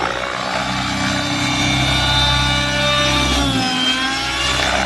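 Align T-Rex 600E electric RC helicopter in stunt flight: a steady whine from its electric motor and rotors. About three and a half seconds in, the pitch dips briefly and climbs back.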